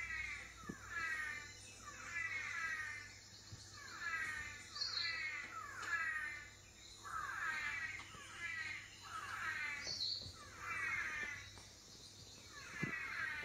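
Male manakins calling in duet, played through a television's speaker: about a dozen buzzy calls that slide downward in pitch, roughly one a second and some in close pairs.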